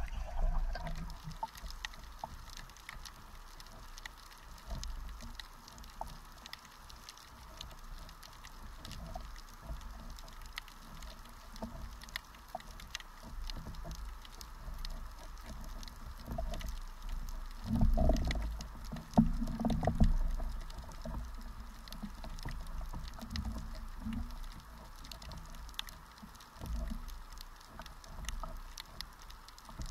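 Underwater ambience picked up by an action camera in shallow sea water: a constant crackle of scattered faint clicks over a low wash of moving water, with louder low sloshing and rumbling swells about two-thirds of the way through.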